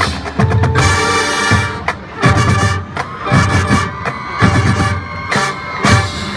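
Marching band playing a field show: sustained wind and brass chords punctuated by loud percussion hits about every second.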